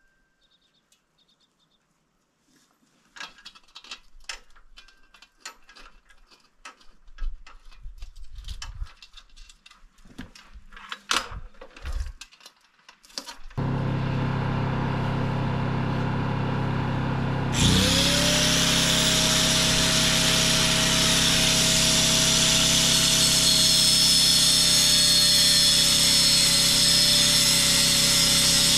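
Scattered knocks and clanks of tools and metal being handled, then a steady low hum from the portable generator starting suddenly. About 18 seconds in, a handheld power tool spins up and runs continuously with a steady high whine and hiss.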